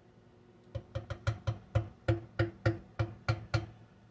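A wooden spoon knocking about a dozen times on the stoneware crock of a slow cooker, roughly three to four sharp wooden knocks a second, each with a short ringing note.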